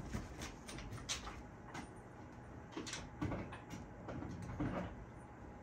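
Faint, scattered clicks and a few soft knocks: a golden retriever's claws on a wooden floor as it walks about.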